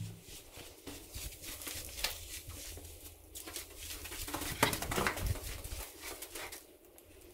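A labradoodle's paws padding and scuffing on plastic floor-protection sheeting, with scattered light taps.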